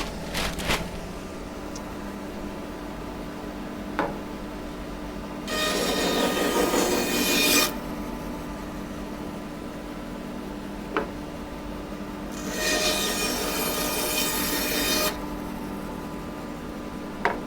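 Bandsaw running with a steady motor hum, its blade cutting through a wooden blank twice, each cut lasting two to three seconds, with a sharp click before each cut.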